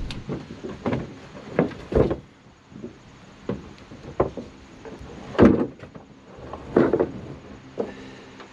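A series of irregular knocks and scuffs, about nine in all, the loudest about five and a half seconds in.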